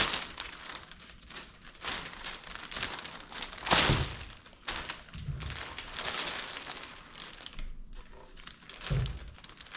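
Packaging being pulled open and handled, with crinkling and tearing of wrapping and a few dull thuds of the box and windshield being moved.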